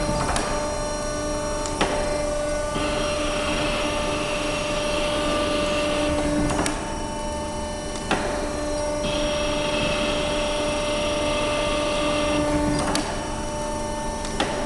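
Flour mill roller renewing machine running on a steel mill roller: a steady motor hum with a hissing cutting sound that comes and goes in stretches of a few seconds. Sharp clicks come every few seconds, often in pairs.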